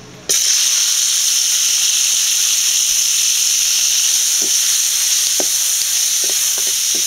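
Sliced tomatoes hitting hot oil in a frying pan: a loud, steady sizzle that starts suddenly about a third of a second in. In the second half a slotted spatula knocks against the pan a few times as the tomatoes are stirred.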